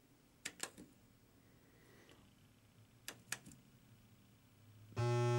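Buttons clicking on a coin-operated Joker Poker machine, in two quick clusters of two or three presses about half a second and three seconds in. Near the end the machine sounds a loud, steady electronic buzz tone.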